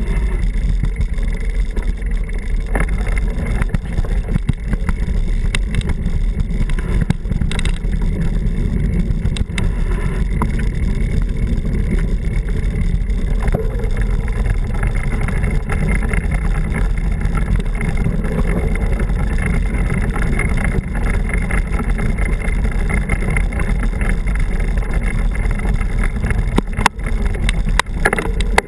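Steady low rumble of wind and motion on the microphone of a camera riding on a mountain bike, with the rattle of the bike over a gravel dirt track giving many small clicks and knocks.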